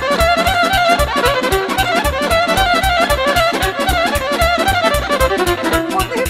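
Instrumental break in Romanian party music: a fast, ornamented violin lead over a steady, driving dance beat and band accompaniment, with no singing.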